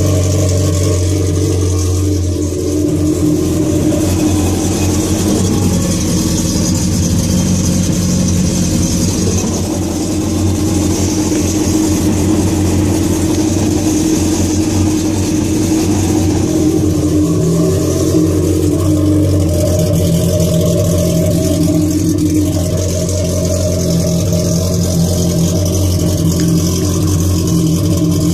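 Yamaha VXR WaveRunner's four-stroke engine, fitted with a modified exhaust, running out of the water at a steady idle. Its pitch shifts slightly about two-thirds of the way through.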